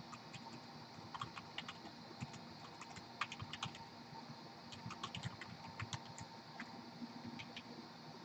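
Typing on a computer keyboard: faint, irregular key clicks in short runs.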